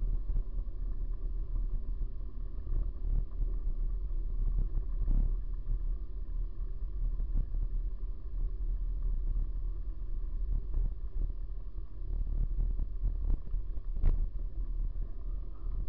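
Wind rumbling on the microphone of a bicycle-mounted camera while riding, with frequent small knocks and rattles as the bike jolts over the rough road. One sharper knock comes near the end.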